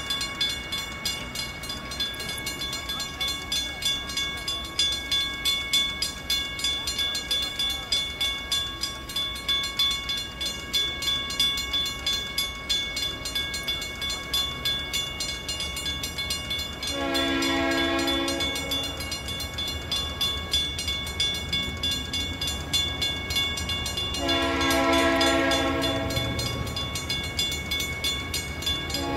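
Railroad crossing bell ringing steadily in quick, regular strikes, while an approaching freight locomotive sounds its air horn: one long blast about 17 seconds in, a second, longer one about 24 seconds in, and a third starting right at the end. This is the horn pattern a train sounds for a grade crossing.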